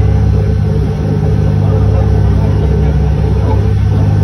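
A boat's engine running steadily under way: a low, even drone, with a wash of rushing noise above it.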